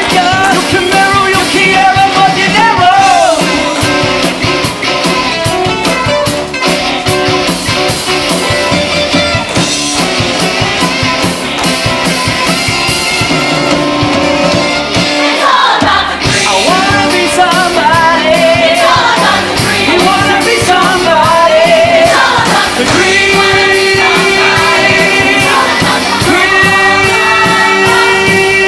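Live rock-style show tune: a band with a steady drum beat under a cast singing. About halfway through, the bass and drums drop out for a moment. The ensemble then sings on and closes with long held chords.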